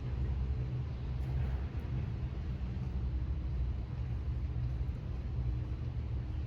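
Wind buffeting the microphone outdoors: a steady low rumble with a faint hiss above it.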